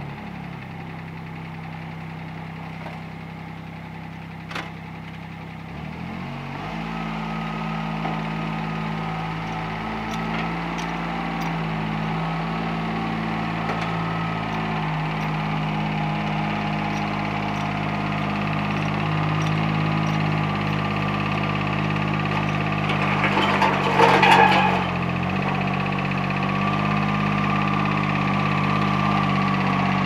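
Utility vehicle engine running at low speed while towing, its note picking up about six seconds in and growing louder as it comes closer, with a brief loud clatter about 24 seconds in.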